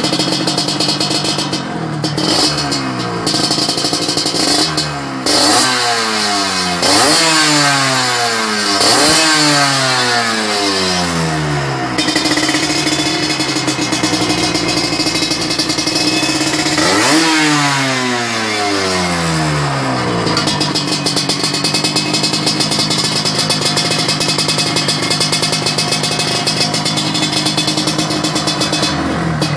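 Yamaha RXZ's two-stroke single-cylinder engine running through an aftermarket exhaust, blipped up to high revs about four times and falling back each time, then idling steadily for the last third.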